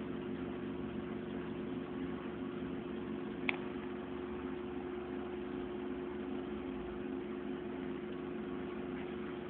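Desktop computer running while it boots, its fans giving a steady hum with hiss. A single short click about three and a half seconds in.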